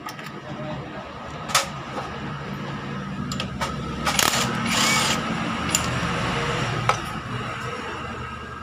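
Sharp metallic clicks of engine parts and screws being handled, with two short whirring bursts of a power tool about four and five seconds in. A steady low hum sits underneath through the middle.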